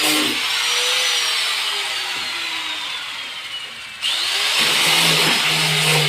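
Electric wood-sanding machine: its motor whine falls away as it spins down after being switched off, then about four seconds in it is switched on again and quickly revs back up to a steady running speed.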